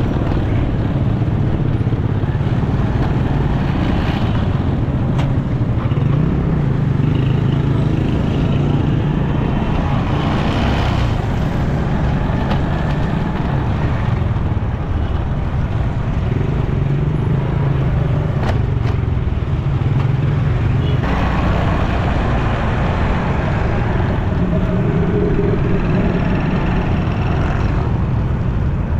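Motorcycle engine running steadily at low speed in city traffic, with the engines of surrounding cars and motorbikes mixed in.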